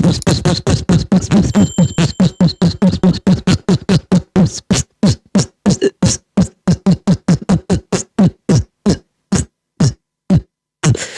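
Beatboxed vocal sound effect: a rapid string of short mouth pulses that gradually slows, the gaps between them lengthening until it stops near the end.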